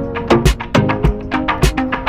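Background music with a steady beat: a Latin-style track of drums and percussion under plucked, pitched notes.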